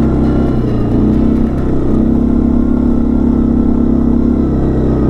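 Quad bike (ATV) engine running steadily under load as the ATV climbs a sand dune at low speed, its pitch holding fairly level and swelling a little from about two seconds in.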